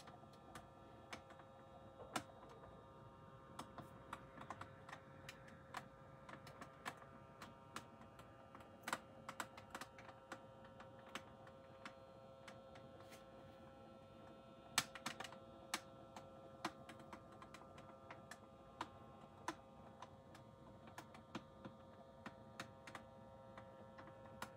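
Faint steady whine of a small motor, such as a motorized display turntable, with many irregular light clicks scattered throughout.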